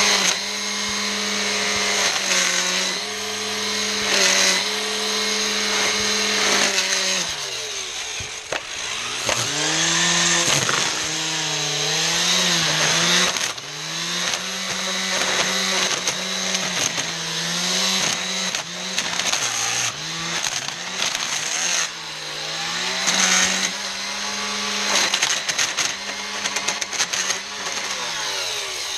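ECHO 58-volt cordless string trimmer running at its high-speed setting, with a steady motor whine and the hiss of the spinning line. After about seven seconds the whine keeps dipping in pitch and recovering as the line bogs down in thick, tall weeds and then speeds back up.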